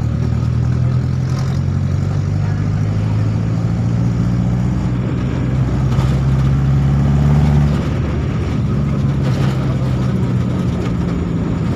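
Vehicle engine running while driving, a steady low hum with road noise. It grows louder and rises slightly in pitch, then drops away suddenly about eight seconds in.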